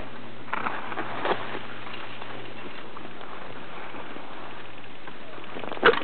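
Steady hiss of skis sliding over packed snow while being towed up a platter ski lift, with a few scattered scrapes and a sharp knock near the end.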